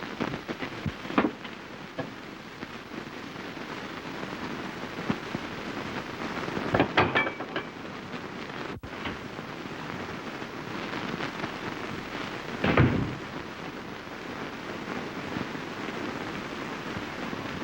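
Steady hiss and crackle of an early optical film soundtrack, with a few dull knocks, and a brief dropout in the middle where the sound cuts out for an instant.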